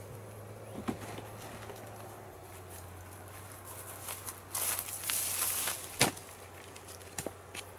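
Rustling footsteps through long grass, then a sharp wooden knock as a piece of dead wood is set down on a pile of logs about six seconds in, followed by a couple of lighter wooden clicks. A low steady hum runs underneath.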